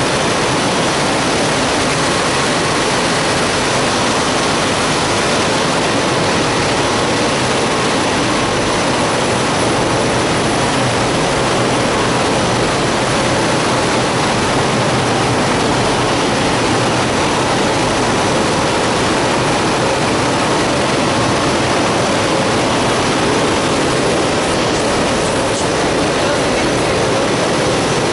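Rotogravure printing machine running while printing plastic film: a loud, steady mechanical noise that holds the same level throughout.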